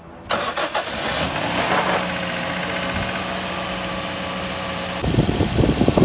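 Toyota Corolla GLI's four-cylinder petrol engine cranked by the starter for under a second, catching with a brief rise in revs, then settling into a steady idle. Its valve tappets have just been adjusted to cure an engine noise problem.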